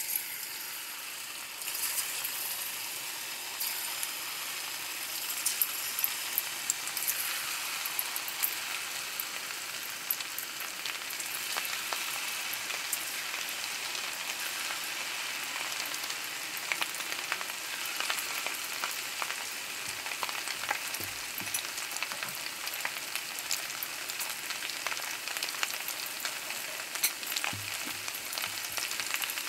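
Pork loin pieces in a wet starch batter deep-frying in oil at 180 °C for the first fry: a steady sizzle with a dense crackle of tiny pops. It gets louder about a second and a half in, as the battered pieces go into the oil.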